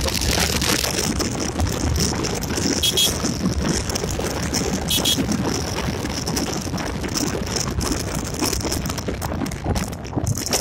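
Yamaha Gladiator 125 cc single-cylinder motorcycle riding along at speed: a steady rush of engine and wind noise on the microphone. Two brief high beeps sound about two seconds apart.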